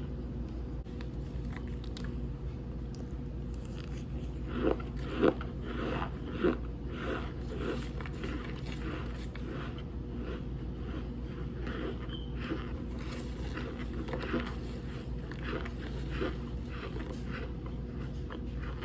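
Someone biting and chewing chunks of cornstarch with a squeaky crunch, starting about four seconds in and going on at about two chews a second, the first few bites the loudest. A steady low hum runs underneath.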